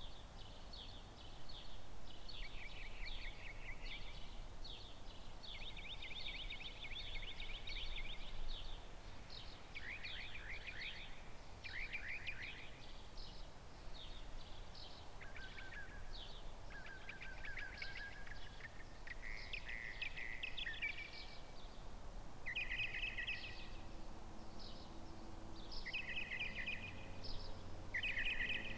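Small birds chirping and trilling in short bursts, one every second or two, over a low, steady background rumble.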